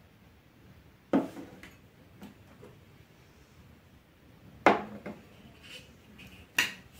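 Glass serving bowls knocking against a wooden tabletop and a metal plate as they are picked up and set down: four sharp clinks and knocks, about a second in, twice about two-thirds of the way through, and near the end, the third clink the loudest.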